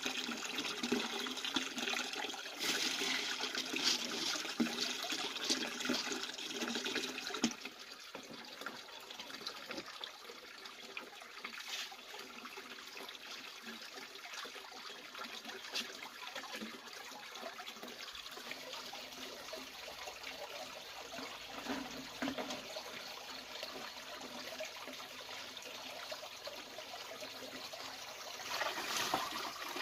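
Water running and splashing, louder for the first several seconds, then softer, with a brief louder gush near the end.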